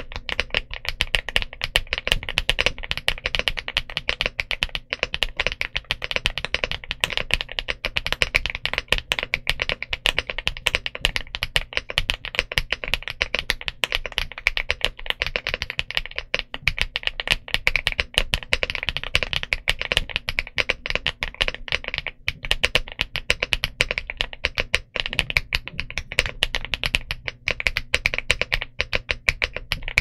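Continuous fast typing on an ElecFox Inky75 75% aluminum mechanical keyboard fitted with Matcha Buttermilk switches and double-shot PBT Cherry-profile keycaps: a steady, dense stream of keystrokes.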